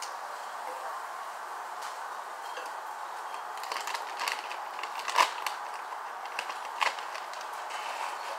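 Plastic bag of David sunflower seeds crinkling as it is handled and tipped, with a run of sharp clicks and crackles in the middle, two of them louder, over a steady hiss.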